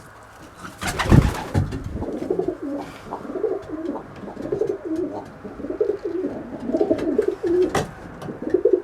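Racing pigeons cooing in the loft, a low wavering warble repeated over and over, with a single loud thump about a second in.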